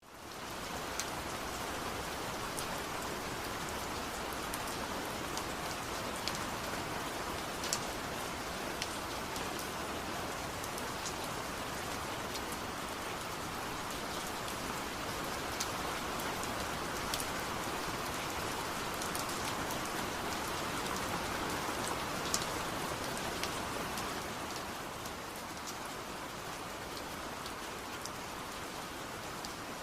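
Steady rain falling, with scattered sharp drop ticks standing out over the even hiss; it fades in at the start and eases a little near the end.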